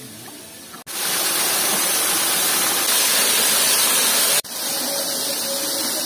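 Steady rush of water pouring over a small spillway waterfall into a spring-fed pool, cutting in suddenly about a second in, with a brief break about four and a half seconds in.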